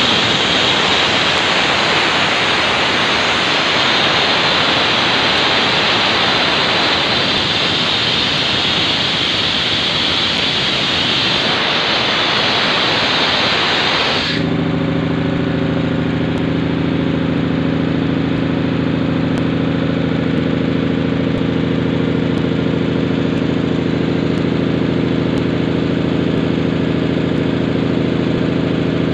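Tanabe HC-277A main air compressor running on its electric motor, with air hissing loudly out through an open valve. About halfway through the valve is shut: the hiss cuts off suddenly and the compressor's steady low drone is left as it builds pressure.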